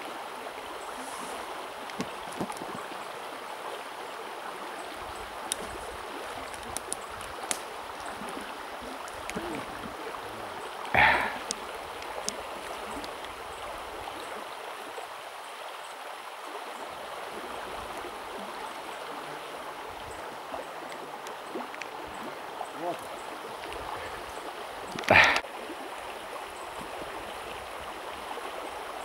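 Shallow river water flowing steadily over stones, a continuous rushing murmur. Two brief, louder sounds break through it, one about a third of the way in and one near the end.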